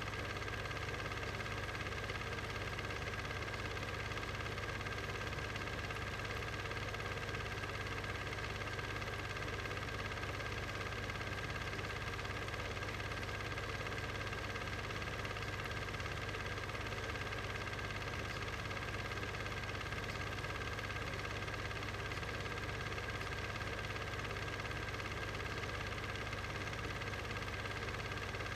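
A steady hum made of several unchanging tones over a faint hiss, holding one level throughout.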